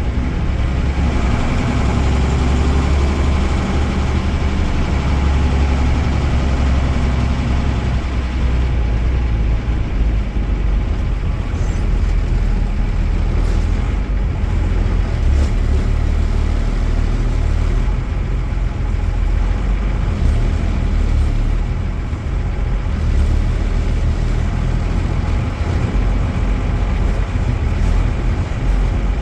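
Mercedes-Benz OM-366A inline-six diesel engine of an OF-1318 bus chassis running steadily, its low engine note changing about eight seconds in.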